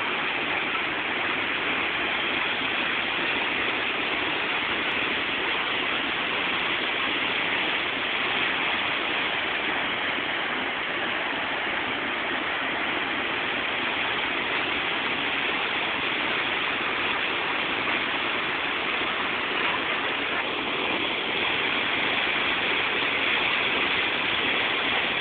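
Waterfall, a steady rush of falling water pouring into its plunge pool.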